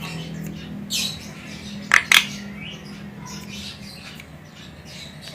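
Female Javan myna calling: a short call about a second in, then two sharp, loud calls in quick succession around two seconds in, with fainter calls scattered between.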